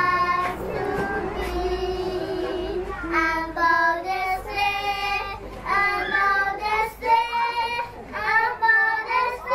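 Two young girls singing a song together, in sung phrases with held notes.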